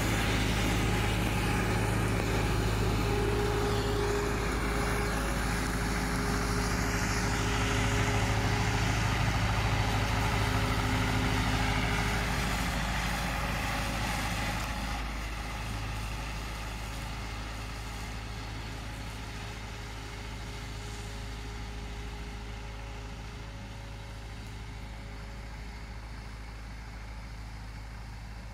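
Belarus MTS-50/52 tractor's four-cylinder diesel engine running steadily under load while it drives a rotary drum mower through tall grass. It slowly grows fainter over the second half as the tractor works away.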